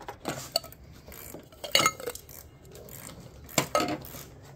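Sharp metallic clinks of a ratchet, socket and tin can holding bolts being handled on the car's fender. One loud ringing clink comes about two seconds in, and a quick cluster of clinks comes near the end.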